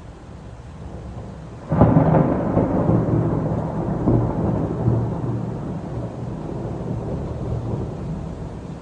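A thunderclap breaks suddenly about two seconds in and rolls on as a long rumble. The rumble swells twice more and slowly fades.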